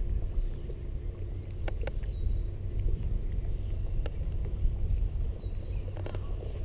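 Steady low wind rumble on the microphone, with light knocks of water against the boat's hull. A bird gives a few high whistles that fall in pitch.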